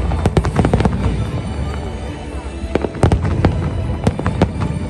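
Aerial fireworks exploding in rapid bursts of sharp bangs and crackles over a continuous low rumble, with a brief lull partway through before more bangs follow.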